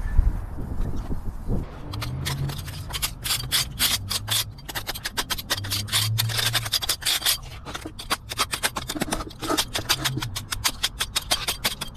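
Rapid, repeated scraping and rubbing strokes of a hand tool worked over fresh stucco on a wall, starting about one and a half seconds in. The stucco is being worked while still soft to blend the new patch into the old.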